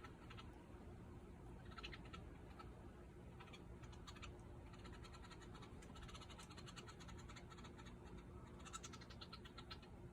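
Woodpecker pecking at wood: faint, irregular runs of quick taps, the longest and densest about halfway through, over a steady low hum.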